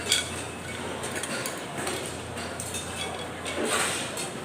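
Clinks of cutlery and dishes at a table over a steady background of a busy food court.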